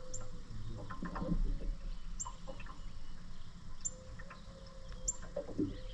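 A bird's short, high chirps, each dropping quickly in pitch and repeating every second or so, over a steady low hum.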